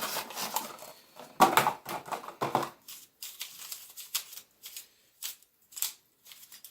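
Plastic clicks and clatters from a YJ YuLong V2 magnetic Pyraminx as it is handled and turned. A few louder clatters come in the first few seconds, then sparser, lighter clicks.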